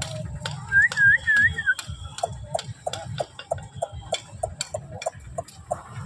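Aseel chickens clucking in short, even notes, about three a second, over scattered clicks. The loudest sound is a quick run of four wavering, whistle-like notes about a second in.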